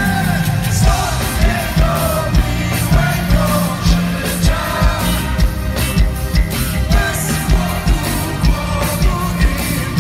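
Live pop-rock band with electric guitar, bass guitar, keyboards and drum kit playing a song with a sung melody, over a steady drum beat about twice a second.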